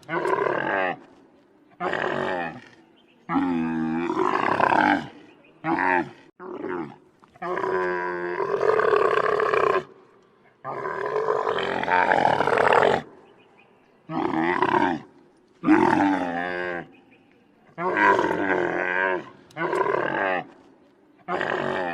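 Camel calling over and over: about a dozen loud, pitched calls, each lasting from under a second to about two and a half seconds, with short pauses between them.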